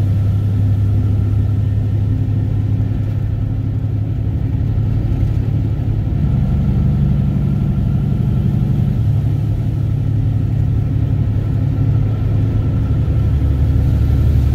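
Heavy truck's diesel engine droning steadily, heard from inside the cab while cruising. The engine note shifts about six seconds in and drops lower near the end.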